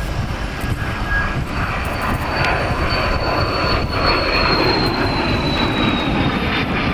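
Cessna Citation XLS business jet's twin Pratt & Whitney PW545B turbofans at takeoff power as it lifts off and climbs past: a steady jet rush with a high whine that slides slowly down in pitch as the jet goes by.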